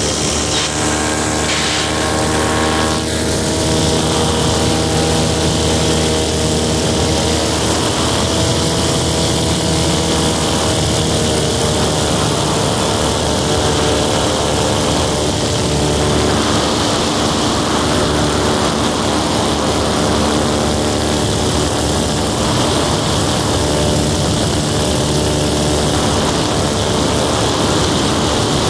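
Paramotor engine and propeller running steadily at cruise in flight, with a rush of air over the microphone. The engine note shifts slightly about three seconds in, then holds steady.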